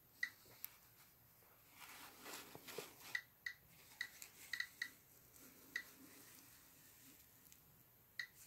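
Geiger counter clicking at random, irregular intervals, about ten sharp clicks, as it counts radiation from a radioactive thorium mineral specimen. A soft rustle of handling about two seconds in.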